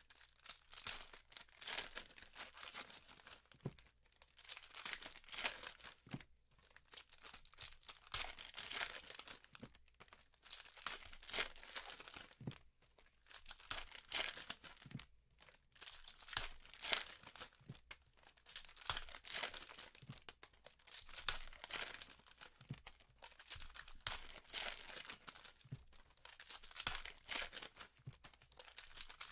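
Foil wrappers of 2015 Panini Prizm football trading card packs being torn open and crinkled by hand, one pack after another: a crackling rustle in clusters with short pauses every few seconds.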